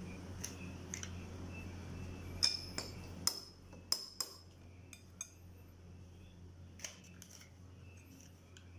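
Spoon clinking and tapping against a glass bowl while scooping lumpia filling: a scatter of sharp, light clinks, some with a short ring. A low steady hum runs underneath and stops about three seconds in.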